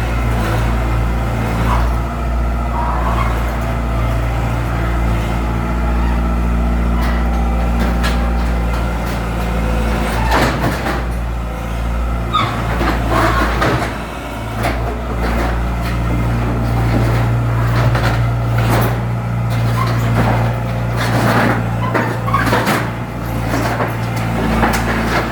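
Heavy demolition machine's engine running steadily, with irregular clanks, knocks and rattles of debris and metal being broken up, thickest in the second half.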